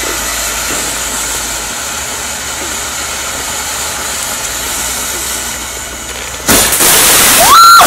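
Ground fountain firework spraying sparks with a steady hiss. About six and a half seconds in it suddenly flares up much louder into a sustained rushing crackle, the unexpected flare-up, with a short rising shrill tone near the end.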